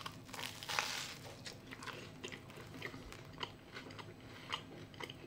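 A person biting into a grilled toast burger, the toasted bread crunching in the first second, then quiet chewing with small scattered clicks.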